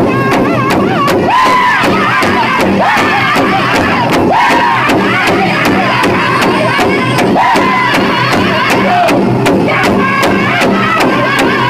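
Large powwow drum beaten in unison by a group of drummers at a steady, fast beat, with the men singing loudly together in high voices, their phrases falling in pitch: a men's traditional song.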